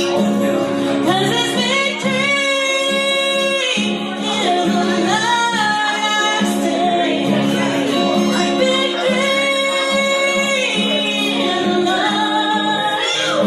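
A woman singing a country song, holding long notes, over acoustic guitar accompaniment.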